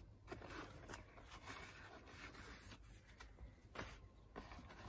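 Faint rustling and scraping of a cut-open cardboard parcel and its packing paper being handled, with a few soft knocks.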